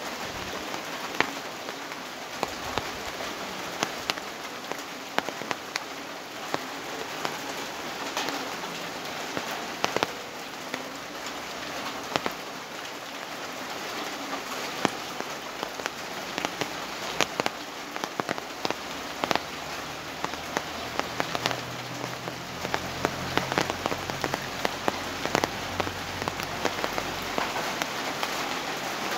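Rain falling steadily: a constant hiss with many sharp taps of drops striking a hard surface. A faint low drone comes in about two-thirds of the way through.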